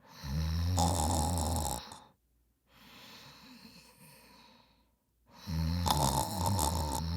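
A person snoring: two loud, low-pitched snores with a quieter breath between them.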